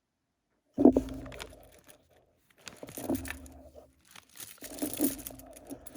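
A plastic bag crinkling and rustling in three spells as it is handled and rummaged through, with small clicks mixed in.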